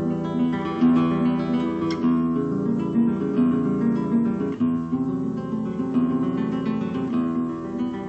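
Background music: an acoustic guitar playing.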